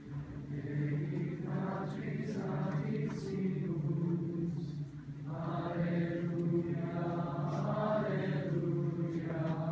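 Choir singing a Latin Christmas carol in long, held phrases.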